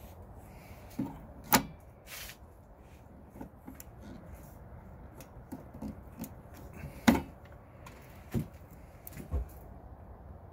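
Sharp plastic-on-metal clacks and knocks from a two-pole main breaker being pushed and wiggled against a Zinsco panel's base and bus bars, about six in all, two much louder than the rest, about a second and a half in and about seven seconds in. The breaker is not yet seating because its alignment is off.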